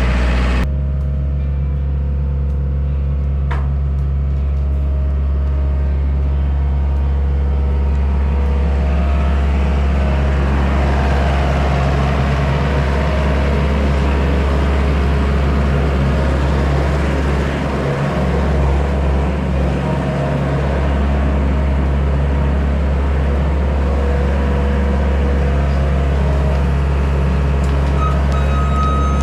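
Small skid steer's engine running steadily under work, its low note dipping briefly about two-thirds of the way through. A backup alarm starts beeping near the end.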